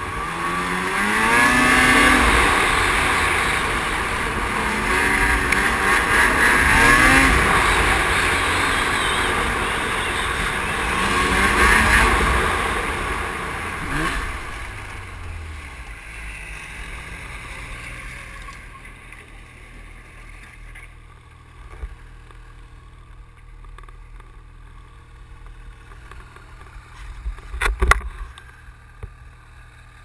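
Snowmobile engine running hard along the trail, its pitch rising and falling with the throttle, then dropping off about fourteen seconds in as the sled brakes to a stop. It then idles low and steady, with a sharp knock near the end.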